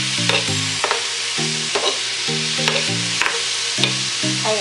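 Fish fillet and onion sizzling in a small aluminium frying pan, with a metal spoon scraping and clicking against the pan as the pieces are stirred.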